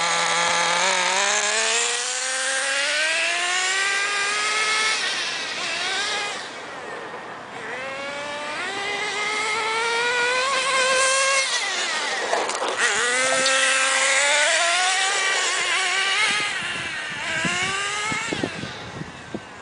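Small nitro engine of a Redcat Volcano S30 RC monster truck, revving hard over and over. Its high note climbs as it accelerates and falls back each time it lets off, and it dips sharply about twelve seconds in before climbing again.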